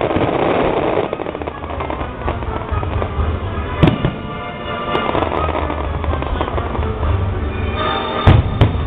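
Aerial fireworks display: a continuous crackle of bursting shells, with sharp bangs about four seconds in and twice near the end.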